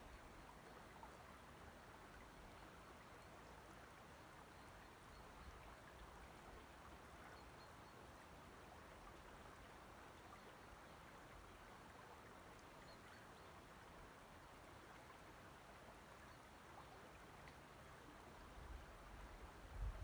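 Faint, steady trickling of shallow loch water over pebbles at the shore. A low rumble creeps in near the end.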